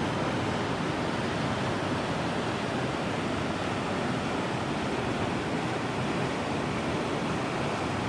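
Rainstorm: heavy rain pouring with a steady, unbroken rushing noise.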